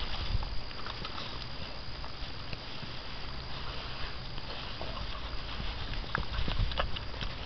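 Six-week-old American Bandog Mastiff puppies scuffling in grass as they tug at a piece of chicken on a string: rustling and a patter of light paw steps with scattered soft clicks and thuds.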